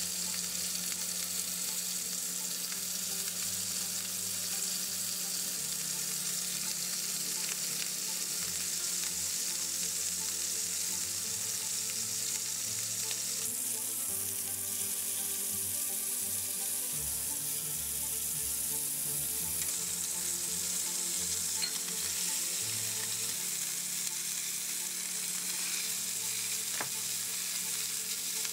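Oyster blade steaks sizzling steadily as they sear in hot oil in a cast iron skillet.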